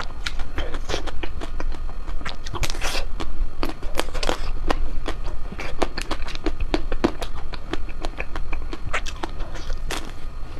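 A person biting and chewing ice cream: a quick, irregular run of wet mouth clicks and crunches, several a second.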